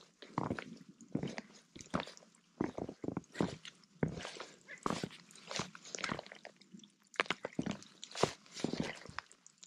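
Footsteps crunching in a thin layer of fresh snow, at an uneven walking pace of two or three steps a second.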